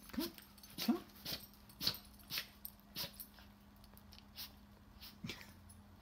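Small dog giving a run of short, sharp barks, about two a second for the first three seconds, then only now and then.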